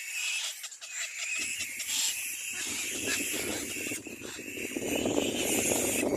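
Little black cormorant chicks calling, a high, rapid chattering. About a second and a half in, a low rushing noise joins and grows louder.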